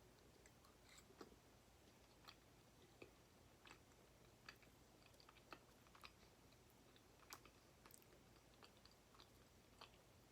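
Faint, soft chewing: small wet mouth clicks, about one or two a second, from someone eating nacho cheese fries.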